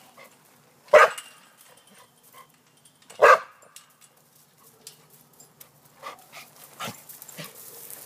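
A dog barking: two loud single barks about a second apart from two seconds, then a few fainter short barks near the end.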